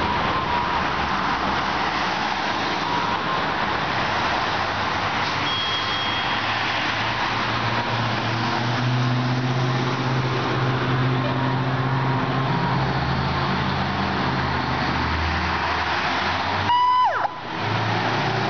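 Fire truck's diesel engine running steadily, growing louder and rising in pitch through the middle as it revs to move off. Near the end comes a brief, loud horn blast whose pitch falls away.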